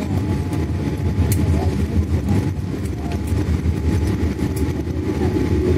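Cabin noise of a Boeing 787-8 rolling out on the runway after touchdown: a loud, steady low rumble from the wheels and the air over the raised spoilers, with a few sharp clicks and rattles.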